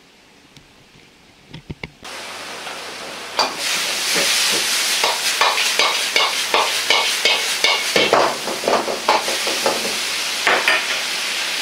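Chicken and bean sprouts frying in a wok, a steady sizzle that starts abruptly about two seconds in, with a metal ladle scraping and knocking against the wok two or three times a second as the food is stir-fried.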